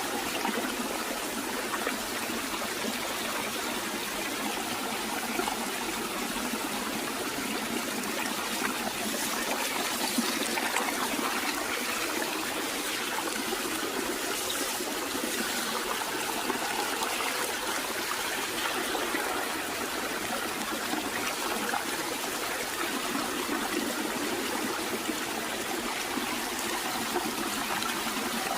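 Running water trickling and splashing steadily over rocks.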